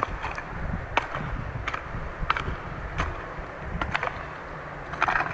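Hoe blade chopping into soil and weeds in repeated strokes, about one knock a second.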